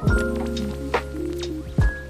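Soft instrumental background music: held keyboard chords over a deep kick drum that sounds at the start and again near the end.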